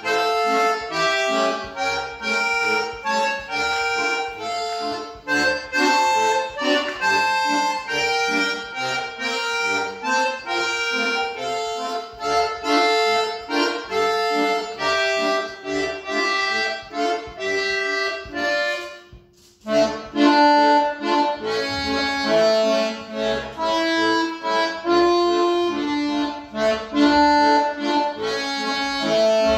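Solo button accordion playing a piece, its notes changing quickly, with a brief break about two-thirds of the way through before the playing resumes.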